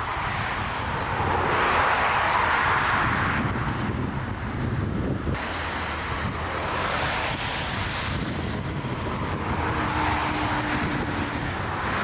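Strong gusty wind buffeting the microphone, a steady low rumble with surges that rise and fall three times, the biggest about a second in.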